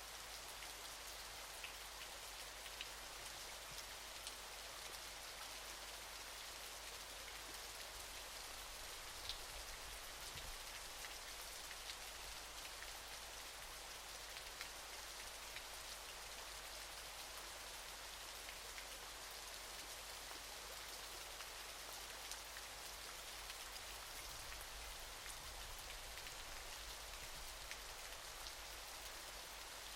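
Waterfall: a steady hiss of falling, splashing water, with scattered small droplet ticks.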